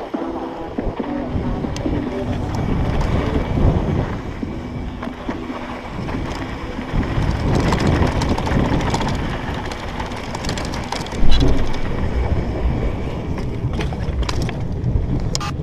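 Mountain bike rattling and rumbling over a rough dirt trail at speed, with wind buffeting the microphone and a loud knock from a bump about eleven seconds in.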